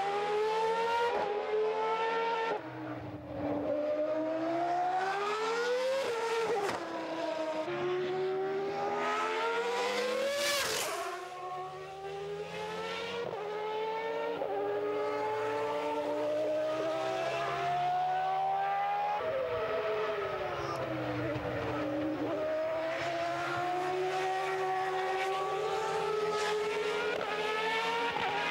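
Williams-Renault V10 Formula One car running on track, its engine note climbing again and again as it accelerates and dropping through downshifts, with a sudden sharp fall in pitch about ten seconds in.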